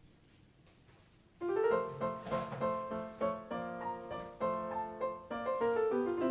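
Piano music that starts about a second and a half in, a quick run of notes with a steady pulse, after a short quiet stretch of room tone.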